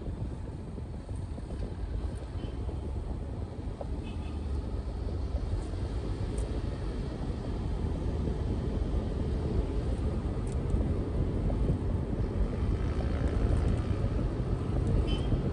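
Steady rumble of a vehicle driving along the road, engine and tyre noise, growing louder over the second half.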